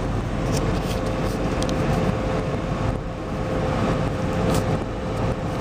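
Steady engine and road noise heard from inside a moving vehicle's cabin, with a faint steady whine and a few light rattles.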